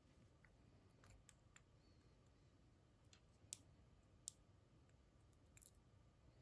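Faint small metallic clicks and ticks as a pin stack is taken out of the back of an American Lock AL1305 core, with two sharper clicks about three and a half and four seconds in.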